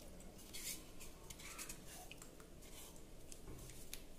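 Faint scraping and light scratching as fingers scrape pounded dried red chilli and garlic paste out of a stone mortar into a steel bowl.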